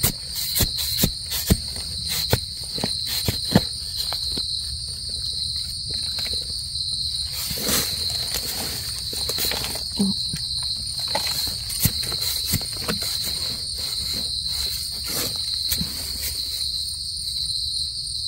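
Steady high-pitched insect chorus, a continuous shrill trill, with many scattered sharp clicks and crackles over it.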